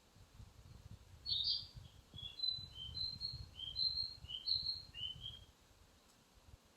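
A bird singing a phrase of about ten short, clear whistled notes that step alternately higher and lower, lasting about four seconds, under a faint low rumble.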